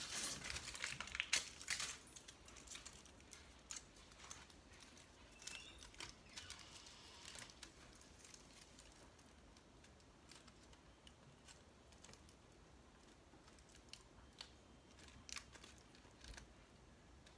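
Aluminium foil (tinfoil) crinkling and crackling as it is pinched and scrunched by hand: a dense run of crackles in the first couple of seconds, then scattered, fainter crinkles.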